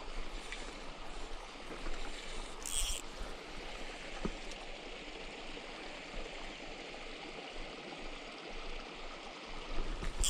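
Steady sound of water at the edge of a reservoir, with a brief high hiss about three seconds in and another at the end.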